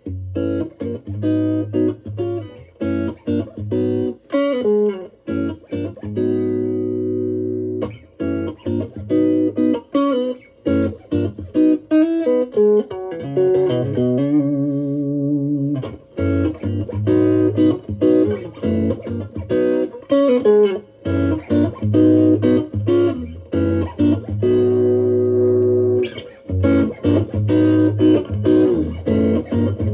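Electric guitar played through an Ibanez TSMINI Tube Screamer Mini overdrive pedal: lines of picked single notes with string bends, mixed with ringing held chords, and a long held chord about halfway through.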